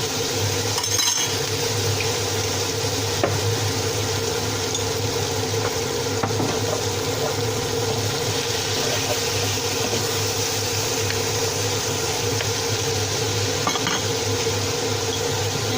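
A cooking pot being stirred with a utensil over steady sizzling, with a few sharp clinks of the utensil against the pot, under a steady low hum.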